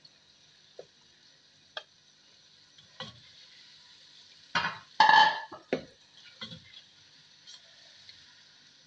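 Chopped tomatoes and green chillies sizzling faintly in hot oil and masala in a pan, stirred with a spatula: scattered knocks and scrapes of the spatula against the pan, loudest in a burst about five seconds in.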